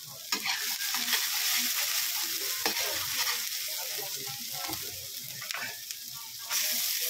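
Minced garlic, ginger, onion and chili sizzling in hot oil in a wok as they are stirred, with occasional clicks of stirring. The sizzle grows louder about six and a half seconds in.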